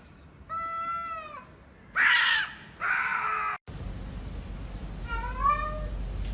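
Cats meowing: three meows in the first few seconds, the second and third louder and rougher. After an abrupt cut comes one shorter, fainter meow over a steady low hum.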